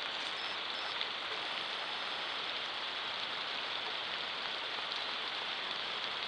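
Steady rain falling, an even hiss with an occasional single drop tick.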